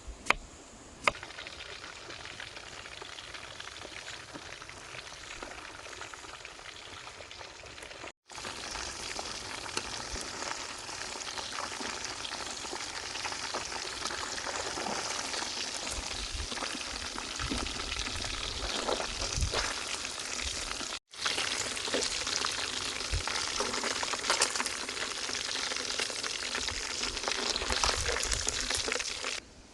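Food frying in hot oil in a pan: a dense, steady sizzle full of small crackles. It breaks off abruptly twice, about 8 and 21 seconds in, and is louder after the first break.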